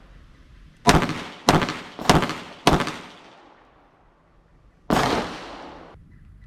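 Five Glock pistol shots: four in quick succession about half a second apart, then a single fifth shot a couple of seconds later, each followed by a reverberating echo.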